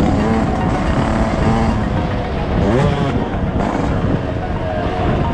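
Dirt bike engines revving, their pitch rising and falling as the bikes accelerate and back off, with a clear rise and fall about three seconds in.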